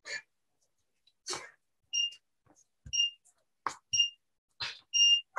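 Digital interval timer beeping the end-of-interval countdown: three short high beeps a second apart, then a longer final beep. Short puffs of hard breathing come in between.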